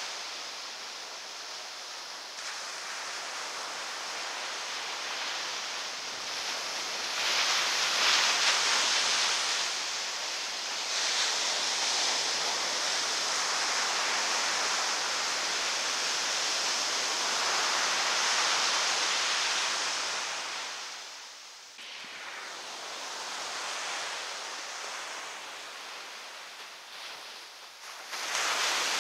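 Ocean surf breaking and washing up a sandy beach, a steady rushing that swells louder between about seven and twenty seconds in, then drops away.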